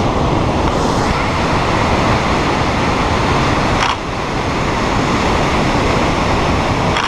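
Loud, steady roar of a large waterfall, a heavy volume of water crashing down into the gorge, with a brief dip in loudness about four seconds in.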